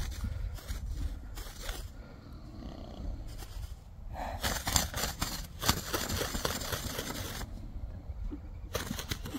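Soft hoofbeats of a young horse cantering on grass, heard as scattered short thuds early and again near the end, over a steady low rumble. In the middle comes a longer rushing noise that holds the loudest moments.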